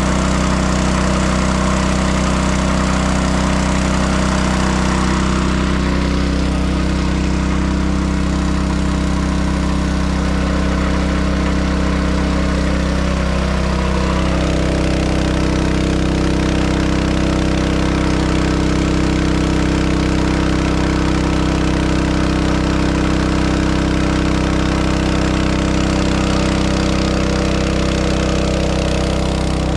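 Small engine-driven water pump running steadily while it pumps water through a hose. Its tone shifts slightly about halfway through.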